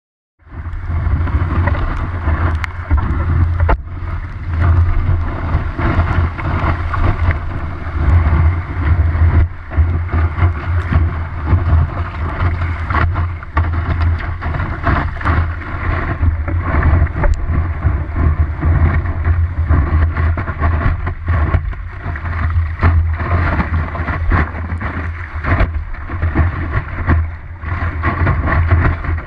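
Wind and rushing water on a surfboard-mounted GoPro in its waterproof housing while the board rides a wave: a loud, steady low rumble under a hiss of water, with frequent small knocks from spray and chop hitting the housing. It starts suddenly just after the beginning.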